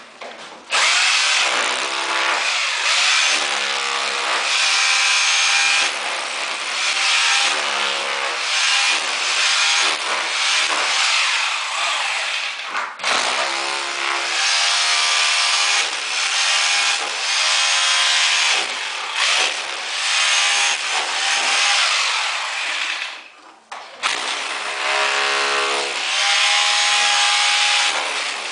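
A power saw cutting, its pitch rising and falling, with two short breaks.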